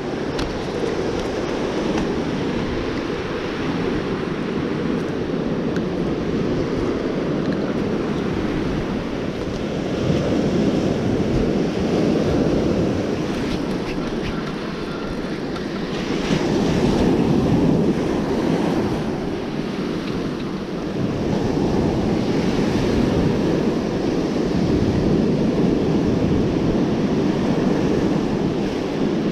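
Ocean surf breaking and washing up a sand beach, swelling and easing every several seconds, with wind rumbling on the microphone.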